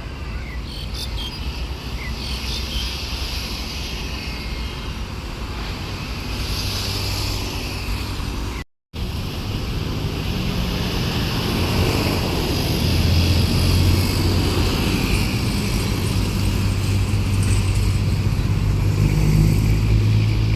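Diesel engine of a heavy track-maintenance rail vehicle running with a steady low rumble. The engine note grows louder from about halfway through. The sound cuts out for a moment near the middle.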